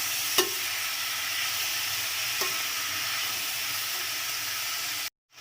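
Onions and tomatoes sautéing in hot oil in a pressure cooker: a steady frying sizzle while being stirred, with two short knocks about half a second and two and a half seconds in. The sound cuts out briefly near the end.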